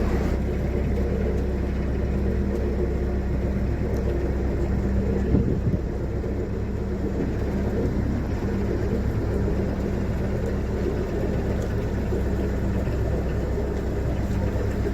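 Narrowboat's diesel engine running steadily under way, a constant low hum.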